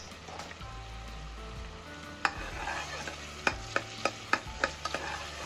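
Onions and green chillies frying in oil in an aluminium pressure cooker: a faint sizzle at first, then from about two seconds in a steel spoon stirs them. It clinks sharply against the pot several times, about three or four knocks a second, while the sizzle grows louder.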